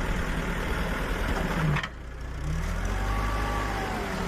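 Vehicle engine running steadily at idle, with a brief break about two seconds in.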